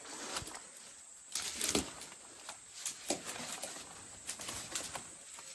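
Footsteps and rustling through dry forest undergrowth: irregular crunches and brushing, loudest a little over a second in.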